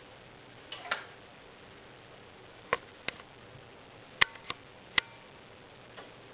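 A series of sharp, irregular clicks, about seven in six seconds with the loudest near the middle, from an electronic throttle body driven by a DC power supply: the valve plate and its small motor moving and snapping. The motor's bearings are worn, according to the owner.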